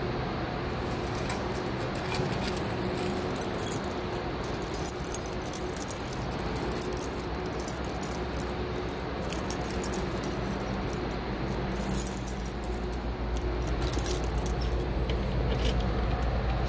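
Steady hum of building ventilation and mechanical equipment, with a low rumble swelling over the last few seconds as the mechanical room is neared. Scattered light clicks and jingles sound over it.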